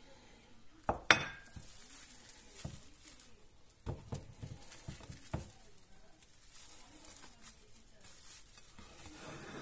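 Ceramic plate and sandwich halves being handled on a wooden cutting board: a few scattered light knocks and clinks, the sharpest a double knock about a second in.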